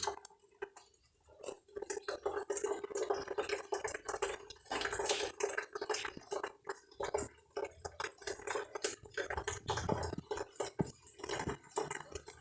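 Irregular clinks and scrapes of kitchen utensils against dishes, over a faint steady hum.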